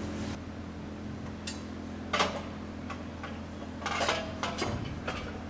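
Metal exhaust pipes being lifted into place under a truck, clinking and knocking against metal a few times, the sharpest knock about two seconds in and more near the end, over a steady low hum.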